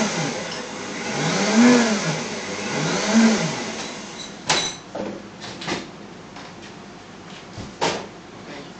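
Countertop blender run in short pulses, its motor speeding up and falling back about three times, then switched off about four seconds in; a few sharp clicks and knocks follow as the blender jar is handled.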